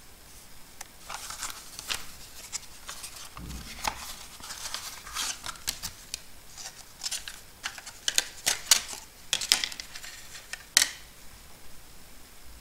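SSD retail packaging being handled: cardboard and a plastic tray rustling and crackling, with a scatter of sharp clicks that grow louder and denser in the second half.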